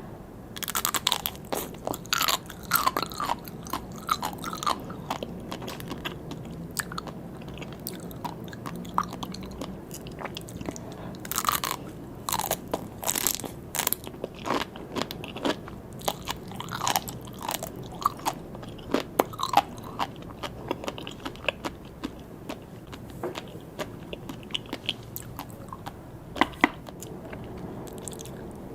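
Close-miked eating of sea grapes: crisp, clicking crunches as the little beads burst between the teeth, coming in clusters of quick bites with quieter chewing between.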